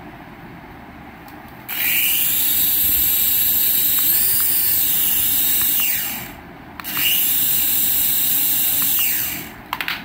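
Toy RC helicopter's small electric motors spinning its rotors, a high whirring whine. It starts about two seconds in, runs for about four seconds, winds down, then runs again for about three seconds, rising in pitch as it spins up and falling as it stops.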